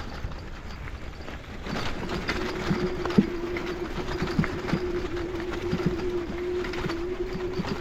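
Bicycle rattling and knocking over a bumpy forest path, with a steady low whine that starts about two seconds in and holds one pitch.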